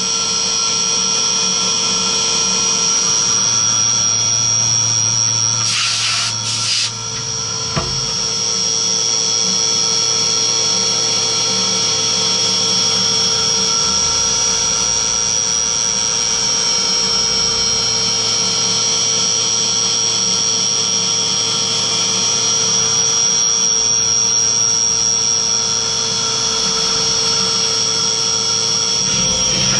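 Skyfire SVM1 CNC vertical mill cutting aluminium under flood coolant: a steady high spindle whine with lower steady machine tones and coolant spray, and a brief hiss about six seconds in.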